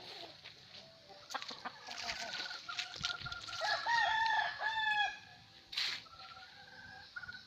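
Gamefowl roosters crowing, the loudest crow about four seconds in, with hens clucking around them.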